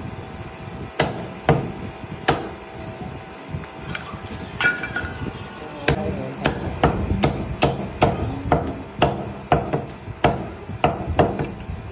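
Heavy meat cleaver chopping bone-in mutton on a wooden log chopping block: sharp thwacks, a few spaced strokes and then a quicker steady run of about two to three a second from about six seconds in.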